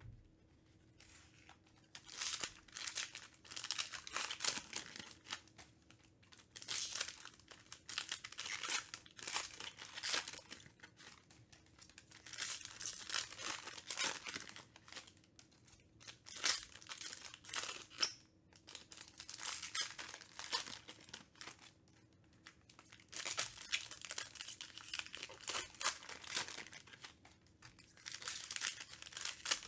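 Foil trading-card packs being torn open and crinkled by hand, in repeated bursts of a second or two with short pauses between them.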